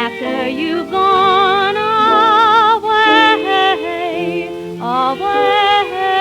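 Instrumental passage of a 1927 popular-song recording played from a 78 rpm record: a melody line with wide vibrato over sustained accompanying chords, with a dull, narrow top end typical of the old disc.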